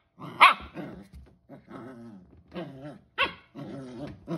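Pembroke Welsh corgi puppy growling and grumbling in a play fit, with two sharp, high puppy barks, one about half a second in and one about three seconds in.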